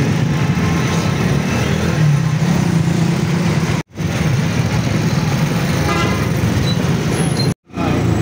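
Steady engine and road noise heard while riding through city traffic in an open vehicle, with a short horn honk about six seconds in. The sound drops out abruptly for a split second twice, at edit cuts.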